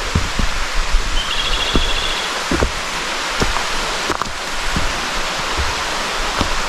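Steady rushing of river water, with soft irregular low thumps throughout and a brief high trill a little over a second in.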